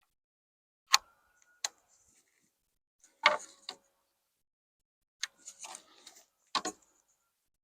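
Sharp clacks and knocks of a square and lumber being handled while boards are marked, with a short scratchy patch between the knocks a little past the middle.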